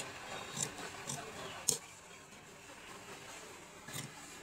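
Large steel tailor's shears cutting through suiting fabric: a few separate crisp snips of the blades closing, the loudest a little under two seconds in, then a quieter stretch before another snip near the end.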